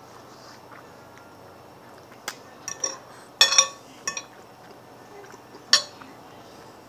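Cutlery clinking against a dish: a handful of sharp, separate clinks, the loudest cluster about three and a half seconds in and a last one near the six-second mark.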